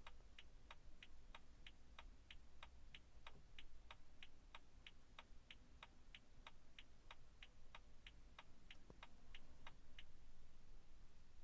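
Faint, even ticking from a BMW F30 instrument cluster, about three ticks a second, the turn-signal ticker sounding while the cluster runs its system test with all lamps lit. It stops shortly before the end.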